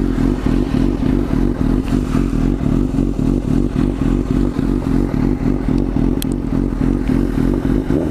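Suzuki GSX-R 750 K4's inline-four engine idling steadily through an open MIVV GP exhaust with its dB killer removed.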